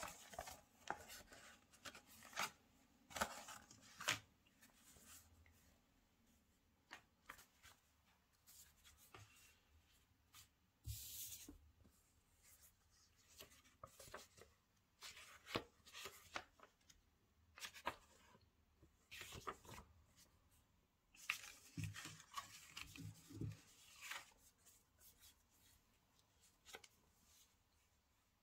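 Product packaging being handled and opened by hand: quiet, scattered taps and clicks with short rustles, a longer rustle about eleven seconds in and another cluster of rustles a little after twenty seconds.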